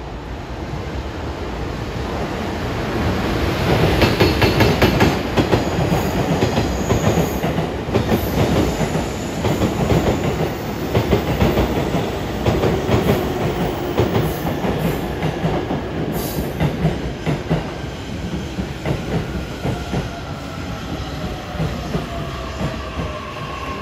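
A freight train passes: a JR Freight EF210 electric locomotive hauling unpowered Izukyu 2100 series passenger cars and a Mani 50 car. It swells in over the first few seconds, then the wheels clatter over the rail joints in a steady run of clicks as the cars go by, fading slowly. A faint falling whine sounds near the end.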